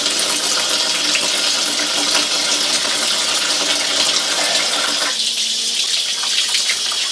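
Water running steadily from a tap and splashing into a sink onto a plucked chicken carcass as it is rinsed by hand. The splashing thins a little about five seconds in.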